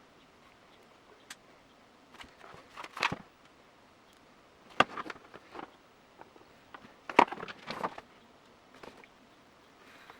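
Irregular clicks, taps and short scraping bursts from tools and plastic bodywork panels being handled during a plastic-welding repair, with a few seconds of quiet between them.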